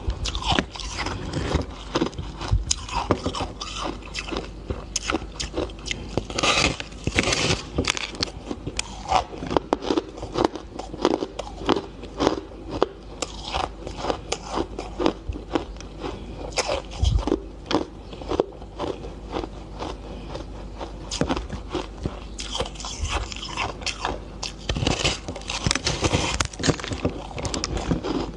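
Crunchy coloured ice bitten, scraped with the teeth and chewed, a dense run of crisp cracks and crunches. The crunching comes in louder spells about a quarter of the way in and again near the end.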